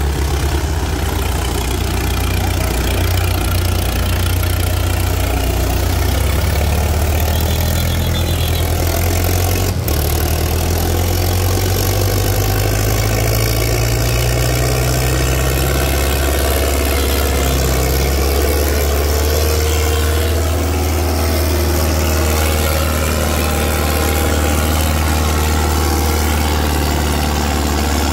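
Tractor diesel engine running steadily at a loud, constant level, its pitch creeping up a little about ten seconds in and then settling, with a single sharp click around the same point.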